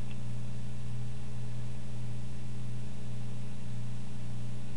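A steady low hum with a faint hiss underneath, unchanging throughout.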